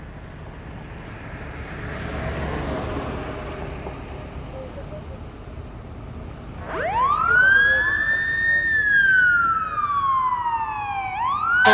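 Fire department emergency vehicle siren, over a low vehicle rumble that swells about two seconds in. About seven seconds in the siren starts, climbing quickly to a high pitch, then falling slowly in a long wail. It rises again near the end.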